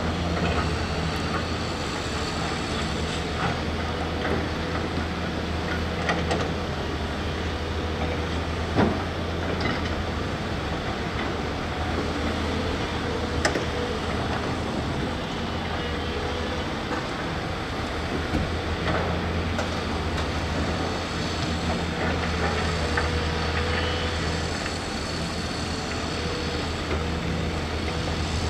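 Diesel engine of a crawler excavator running steadily under load as it digs soil, with a few sharp knocks from the bucket, the loudest about nine seconds in and another near the middle.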